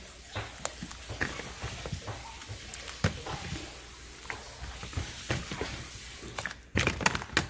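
Whole red potatoes dropped by hand into a large pot of hot seafood-boil broth, making scattered plops and splashes over a steady hiss. A louder cluster of splashes and knocks comes near the end.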